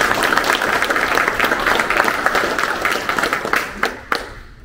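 A small audience applauding, the clapping thinning to a few last claps and dying out about four seconds in.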